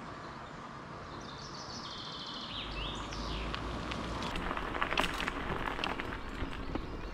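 Riding noise on an e-bike: wind rumble on the microphone and tyre hiss, with a few high, sliding chirps between one and three seconds in and a run of sharp clicks around five seconds in.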